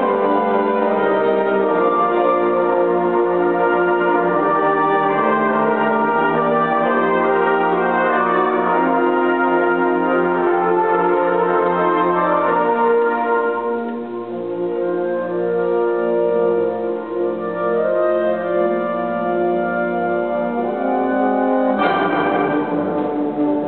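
A concert band of woodwinds, brass, tubas and string basses playing sustained chords. The sound thins and drops for a few seconds in the middle, then the full band comes in loudly near the end.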